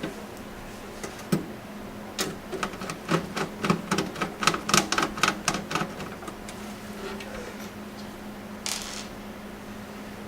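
A rapid series of small sharp clicks and taps, lasting about five seconds: hard-drive mounting screws and a screwdriver against the metal PC case as the drive is fastened into its bay. A brief scrape follows a few seconds later.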